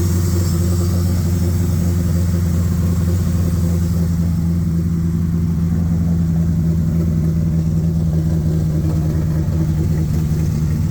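Car engine running steadily with a low, even drone, its pitch easing down slightly partway through.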